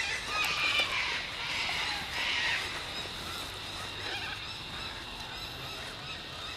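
Several birds calling in the pre-dawn dark, short chirping calls overlapping one another, with rougher, raspier calls about half a second in and again around two seconds in.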